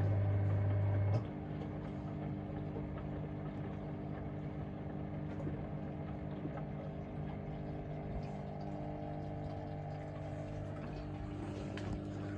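Asko washing machine's loud drain-pump hum cuts off suddenly about a second in. The drum motor then keeps turning a heavily foamed load with water swishing, as the machine's suds lock holds back the first spin.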